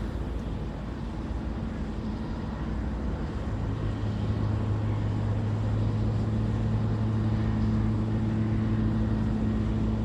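An engine running with a low steady hum that grows louder about three and a half seconds in.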